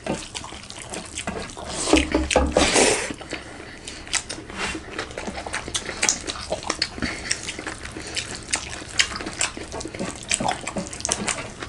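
Close-miked eating sounds of a rice, daal and chicken-gravy meal: wet chewing and smacking with many small irregular clicks. A louder wet burst comes about two seconds in.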